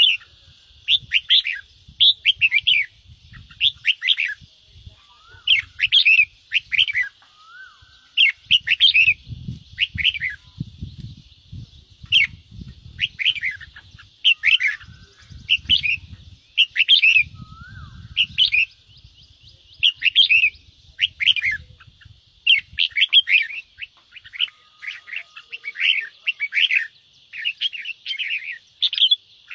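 Red-whiskered bulbul (chào mào) singing its fired-up 'ché' challenge song: short, rapid chattering phrases about once or twice a second over a faint steady hiss. Faint low thuds come and go through the first two-thirds.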